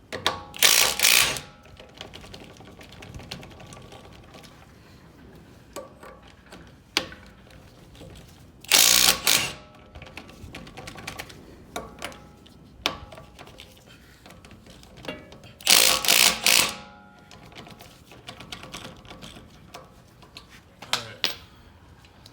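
Impact wrench hammering on the wheel's lug nuts in three loud bursts of about a second each, with the metal ringing, and smaller tool clicks and knocks between them.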